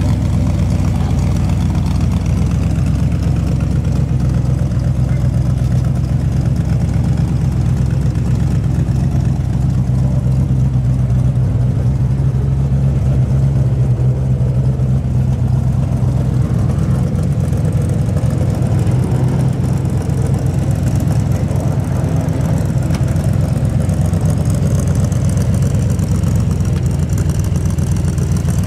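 Street rod's engine idling steadily through its side-exit twin exhaust tips, a low, even rumble with no revving.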